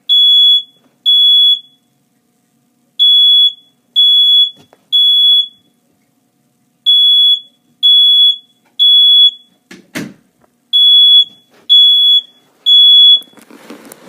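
Smoke alarm going off in its temporal-three pattern: three loud, high-pitched beeps a second apart, a pause, then again, repeating, set off by the fog filling the small space around it. A single knock about ten seconds in, and rustling near the end.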